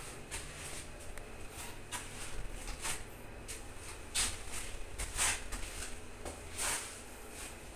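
Low steady hum inside a Mitsubishi Nexiez passenger elevator car, with half a dozen short, soft swishing rustles spread through it, the loudest about four and five seconds in.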